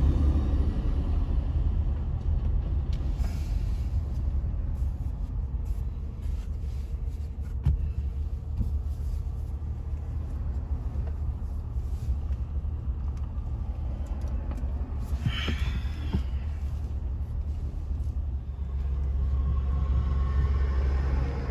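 Steady low rumble of a vehicle's engine and road noise heard from inside the cabin in slow traffic, with a brief higher-pitched sound about fifteen seconds in.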